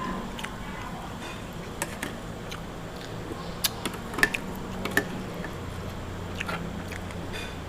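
A person eating: chewing with scattered small clicks and taps, over a steady low hum.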